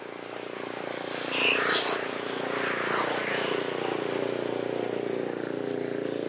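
A motor scooter's small engine approaching and passing close by, its engine note rising in loudness and then dropping in pitch as it goes past. There are short high-pitched chirps about a second and a half in and again about three seconds in.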